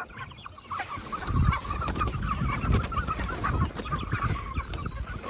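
A flock of meat chickens (broilers) clucking and peeping densely while being fed, with low thuds and rumble underneath.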